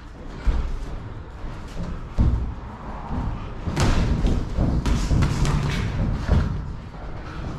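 Boxing gloves thudding as sparring punches land and are blocked, a few single blows and then a quick flurry of several about four to five seconds in.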